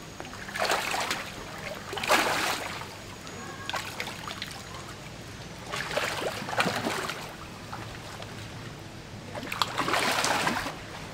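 A crowd of large pacu splashing and thrashing at the pond surface as they snatch thrown food, in four bursts about a second long each.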